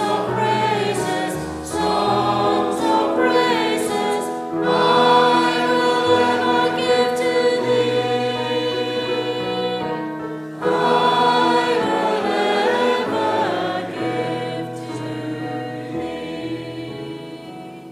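Congregation singing a hymn together, with long held notes in a steady slow tune, growing quieter and fading out near the end.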